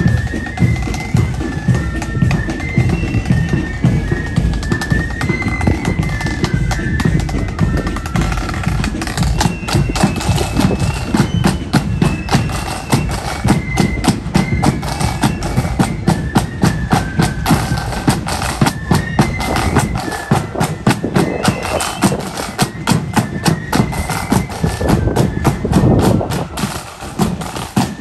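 Marching flute band playing a march: flutes carry a high melody over snare drums and a bass drum beating time.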